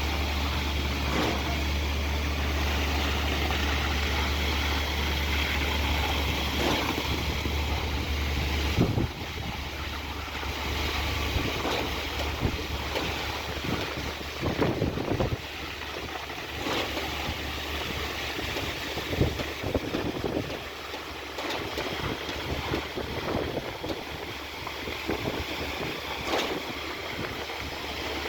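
Heavy truck engine running steadily, its low hum dropping off about nine seconds in, with wind buffeting the microphone and scattered knocks.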